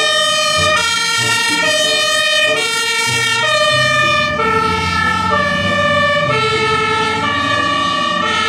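Iveco fire engine's two-tone siren (Martinshorn), stepping back and forth between a higher and a lower note about every 0.7 seconds. The truck's engine rumbles low beneath it.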